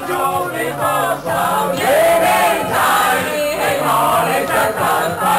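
A group of people singing and shouting together loudly, with music behind them.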